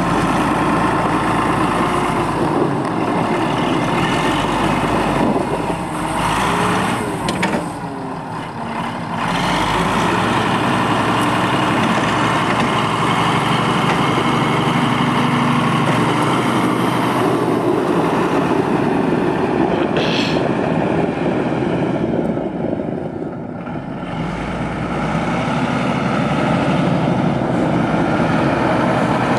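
LM 840 wheel loader's diesel engine running under load as the machine works snow with its bucket. The engine note eases off twice, about a quarter of the way in and again about three-quarters of the way through, then picks back up.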